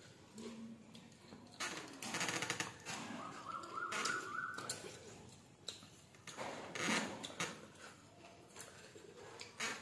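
Eating by hand from steel plates: fingers squishing rice and curry and scraping the plates, with chewing and slurping mouth noises in short bursts. A brief steady high tone sounds about four seconds in.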